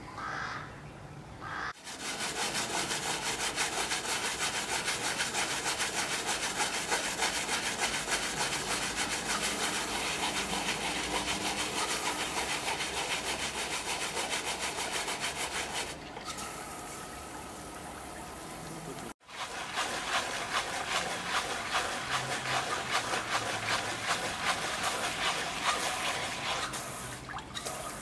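A wire brush scrubbed hard and fast over a painted surface, a dense steady rasping of quick strokes. It falls away about halfway through, cuts off sharply, and then starts up again.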